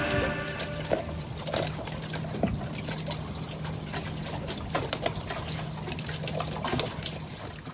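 Water lapping and splashing against a small boat, many small irregular splashes, while a song fades out underneath.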